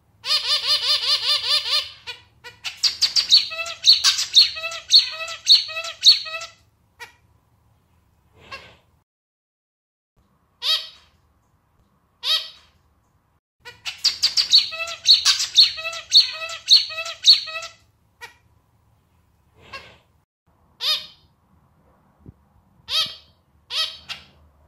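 Male zebra finch singing, a song like a small, slightly out-of-tune clarinet: two bouts, each a run of repeated notes at about two a second, the first opening with a held note about two seconds long. Single short calls come between the bouts and near the end.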